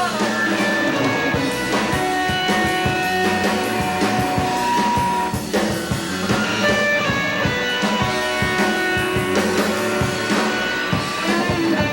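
Live rock band playing an instrumental passage with no vocals: guitar playing held, changing notes over a steady drum beat and bass.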